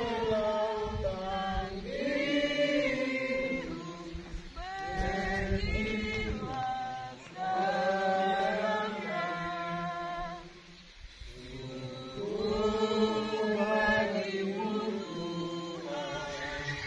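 A group of voices, women's among them, singing a slow song together in long held notes, with a short break about two-thirds of the way through.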